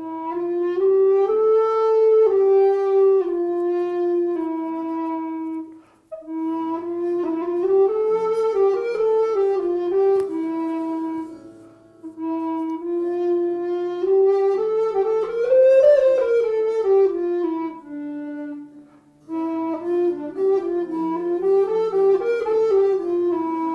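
Renaissance tenor recorder played solo: a single-line melody in four phrases, each ending on a long held note, with brief pauses for breath between them.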